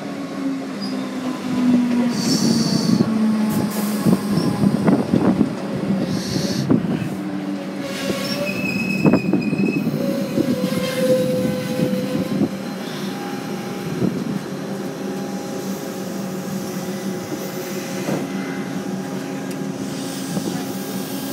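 Electric suburban train pulling into the platform: a low motor whine falling slightly in pitch over many rapid wheel clicks, then brake and wheel squeals about nine to twelve seconds in. After that it stands at the platform with a steady hum.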